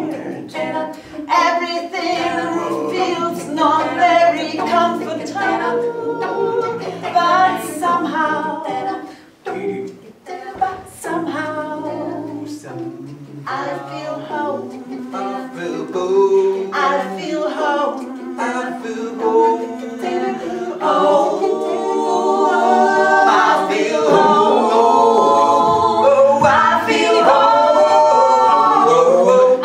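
Improvised a cappella singing by a quartet of two women and two men, several voice lines moving together over held low notes. The singing grows louder and fuller about two-thirds of the way through.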